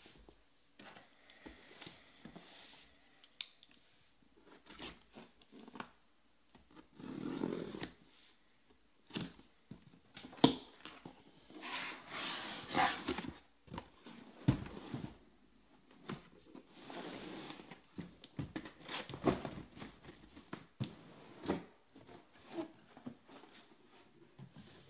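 Cardboard shipping case of trading-card hobby boxes being opened and unpacked by hand: tearing, rustling and scraping of cardboard, with scattered knocks as the boxes are handled and set down.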